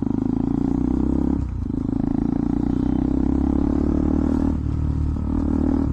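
KTM Duke 200's single-cylinder engine running through an aftermarket Akrapovic exhaust with the dB killer removed, a steady loud exhaust note while riding, dipping briefly about one and a half and four and a half seconds in.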